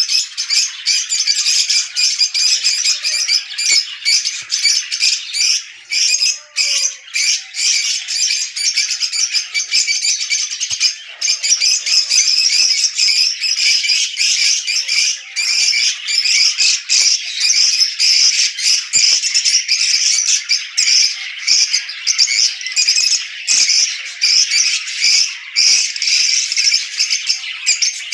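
A flock of lovebirds chattering and squawking nonstop, many high, shrill calls overlapping into a continuous din.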